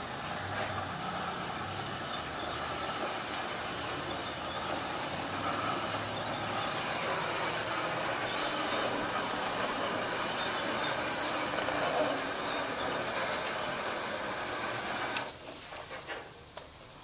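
Seamless gutter roll-forming machine running steadily as it forms a continuous gutter from metal coil, with a high sound repeating about once a second. It stops about fifteen seconds in, followed by a few clicks.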